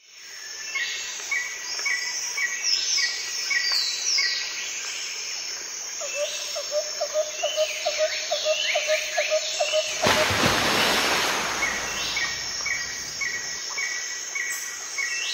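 Birds and insects calling in a steady chorus: rows of short repeated chirps, downward-sweeping calls, and a fast pulsing trill in the middle. About ten seconds in, a loud rushing noise swells for a couple of seconds.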